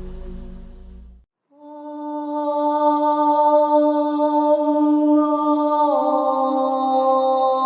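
Meditative chanting music: after a brief silence about a second in, a voice sings one long held chant tone, stepping slightly down in pitch near the end.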